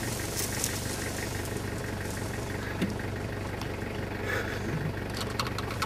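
A vehicle's engine running steadily at idle, heard from inside the cabin, with a few faint clicks.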